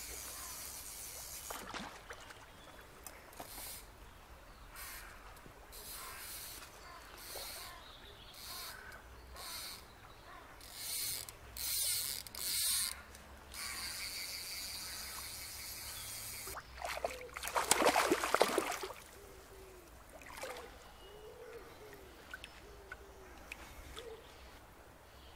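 Fly reel's ratchet clicking in short bursts as line is wound in on a hooked trout. About 17 seconds in comes a louder splashing as the fish is brought into the shallows.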